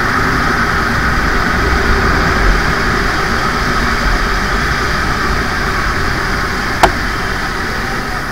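Motorcycle riding through a short tunnel on a wet road: a steady mix of engine and tyre-on-wet-road noise heard from the rider's helmet. A single short sharp click about seven seconds in.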